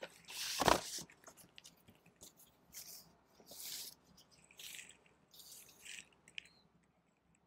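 Paper and plastic record sleeves rustling and sliding as a vinyl LP is drawn out of its printed paper inner sleeve and handled. It comes as a string of short swishes, the loudest about half a second in, with a light tap near the end.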